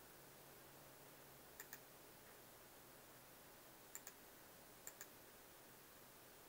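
Three computer mouse clicks, each a quick press-and-release pair, over a faint steady hiss.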